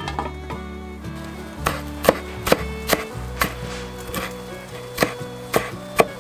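Cleaver chopping spring onions on a wooden cutting board: a run of sharp chops about two a second, starting under two seconds in, over soft background music.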